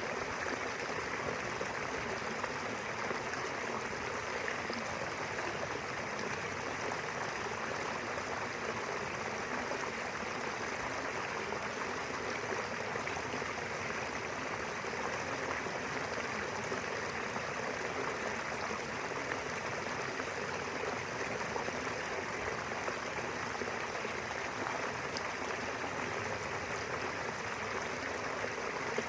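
Small river or stream flowing steadily over its bed, a continuous even rush of running water.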